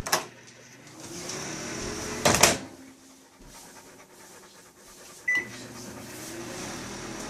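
GE microwave oven switching itself on as its door is opened, a fault: a click, then its hum spinning up and running, a louder click about two seconds in, a short beep about five seconds in, and the hum starting up again.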